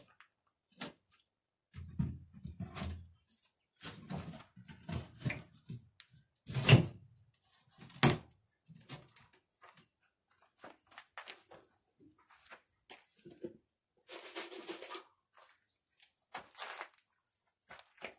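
Irregular knocks and thunks of particleboard cabinet panels being handled and fitted together on a homemade feeder box, the two loudest about seven and eight seconds in, with a brief scuff about fourteen seconds in.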